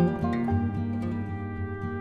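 Instrumental background music for the end screen: a melody of short notes over held low tones.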